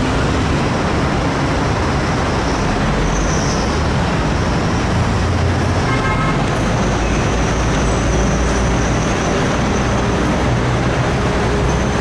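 Steady traffic noise from a busy city road, with a short beep about six seconds in.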